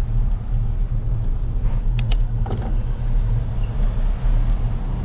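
Steady low rumble of wind buffeting and road noise on a bike-mounted action camera while cycling, with two sharp clicks about two seconds in.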